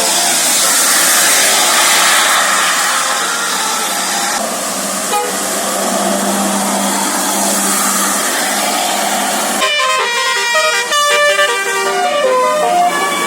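Indonesian bus's 'basuri' telolet horn, a multi-trumpet musical air horn, playing a quick melody of short stepping notes from about ten seconds in. Before that there is a stretch of loud, steady rushing noise.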